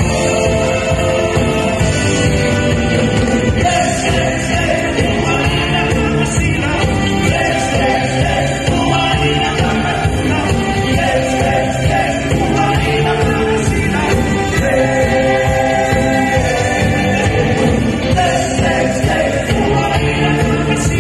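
Live band playing a dance-pop song with singing over a steady beat.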